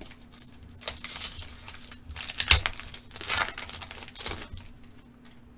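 Foil trading-card pack (2011 Panini Crown Royale football) being torn open and crinkled by hand, in several crackling bursts with one sharp tear about two and a half seconds in.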